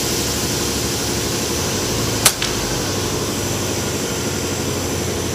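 A single shot from an FX Dreamline Pup .22 PCP air rifle on its low 15 foot-pound power setting: one sharp crack about two seconds in, with a fainter click a split second after. A steady low hum runs underneath.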